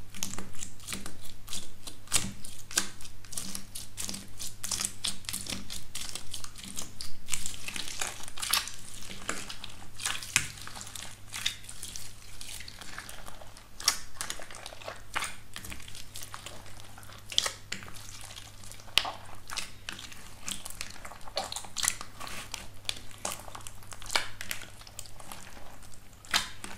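Slime under a cracked, hardened crust being pressed and kneaded by hand: the crust crackles and crunches in many quick sharp snaps, and the slime squishes as it is squeezed. The crackling is densest in the first half.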